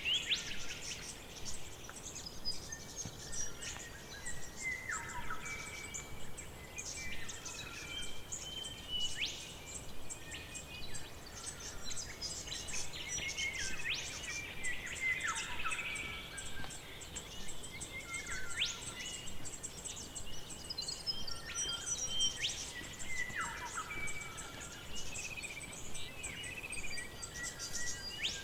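Forest ambience: several birds calling and singing, with short chirps and whistles and a falling call that comes back every several seconds, over a steady high chirring of insects.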